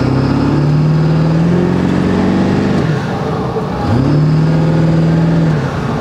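Straight-piped 7.3 L Powerstroke V8 turbo diesel revved up twice, each rev held and then let off, with the turbocharger's whistle heard inside the truck's cab.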